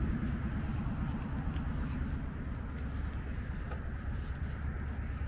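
Steady low outdoor rumble with no distinct events, the kind left by wind on the microphone and distant road traffic.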